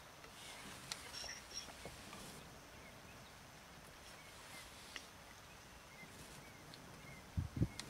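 Quiet wetland ambience with faint short bird chirps repeating every half-second to second, two brief high notes about a second in, a few soft clicks, and a couple of low thumps near the end.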